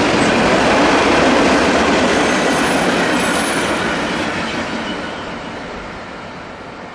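Freight train's covered hopper cars rolling past on the rails, the wheels giving a loud steady rumble that fades away over the last few seconds as the end of the train passes and moves off.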